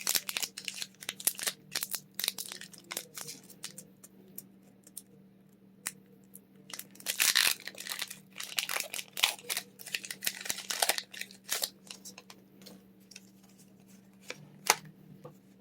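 Pokémon booster pack's foil wrapper being crinkled and torn open. Sharp crinkles give way to longer tearing rips between about seven and eleven seconds in, then a few scattered crinkles.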